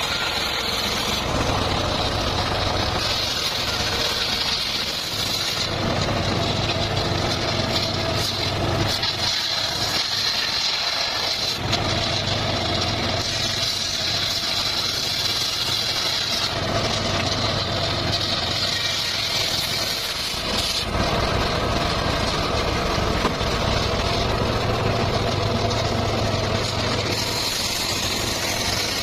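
Engine-driven circular saw running steadily, its sound changing every few seconds as the blade works through the wood or bamboo.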